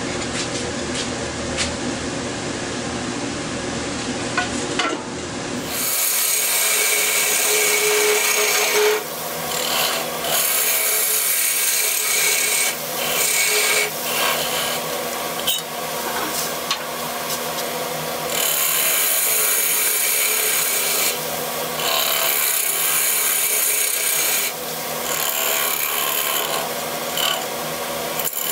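Wood lathe spinning a resin-filled Siberian elm bowl while a turning tool cuts into its face to hollow the inside, giving a rough, hissing scrape. The cut grows louder and brighter after about six seconds and breaks off briefly every few seconds.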